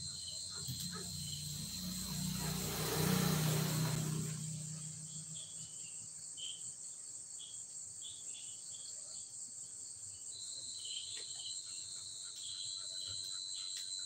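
Steady chorus of crickets and other night insects with a continuous high trill and small repeated chirps. A louder low hum swells and fades about two to four seconds in.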